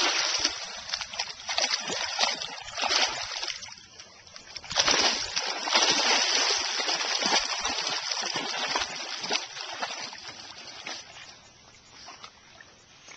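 Dogs splashing as they charge and wade through shallow pond water, loud at first and again about five seconds in, then fading to quieter sloshing as they swim out.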